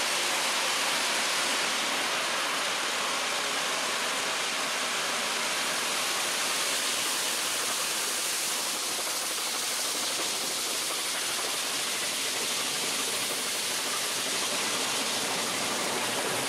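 Steady rushing noise in the cab of a steam locomotive running at speed: wind and running noise with no distinct exhaust beat.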